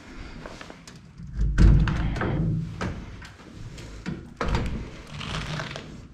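A heavy thud about a second and a half in, followed by knocks and scraping, then another sharp thump a little past four seconds in.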